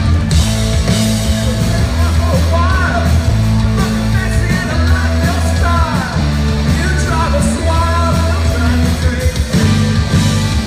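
A band playing rock music with a singer's voice, over steady held bass notes; the singing comes mostly in the middle stretch.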